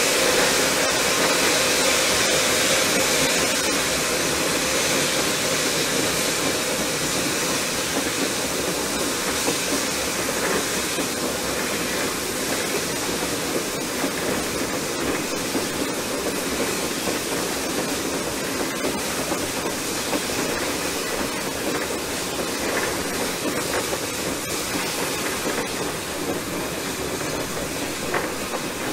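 Small 1920 steam switcher locomotive running along the line, heard from its front pilot: a steady hiss of steam over the rush of the moving engine, easing off slightly in loudness.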